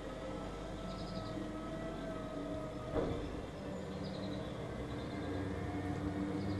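Garbage truck running with a steady low engine hum, with one sharp bang about three seconds in. Short bird chirps come and go over it.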